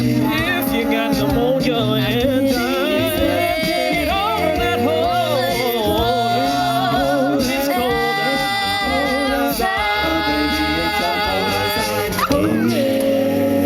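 A cappella vocal group singing in close harmony over a low sung bass line, with upper voices weaving runs and vibrato. About twelve seconds in they slide into one held closing chord.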